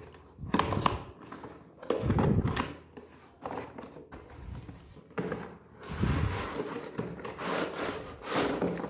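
Cardboard router box being slid open and handled by hand: scraping and rustling of cardboard against cardboard in irregular bouts, with a few louder rubs and knocks.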